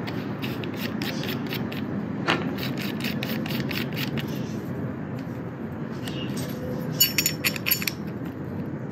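Light metallic clicks and scraping from a hand rivet nut setter as its threaded mandrel and nosepiece are unscrewed and swapped by hand, changing the tool from M5 to M8. A quick run of sharper metal clinks comes about seven seconds in.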